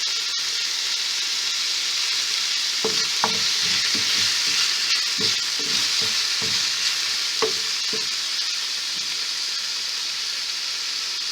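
Chopped tomatoes and onions sizzling steadily in a little oil in a frying pan. From about three seconds in to about eight seconds in, a spoon stirs them, knocking and scraping against the pan a dozen or so times.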